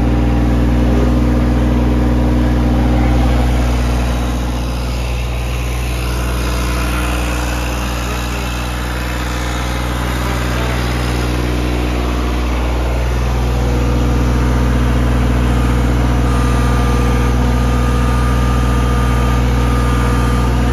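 Three-cylinder Vanguard diesel engine of a Toro Wheel Horse DXi 523 ride-on mower running steadily. The sound dips a little for several seconds midway, then picks back up.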